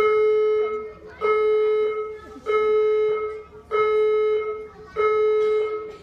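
Building fire alarm sounding, a harsh mid-pitched tone repeating in even pulses: about five beeps, each just under a second long with short gaps between them.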